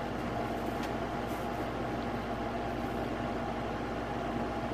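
Air conditioner running with a steady hum and a few constant tones.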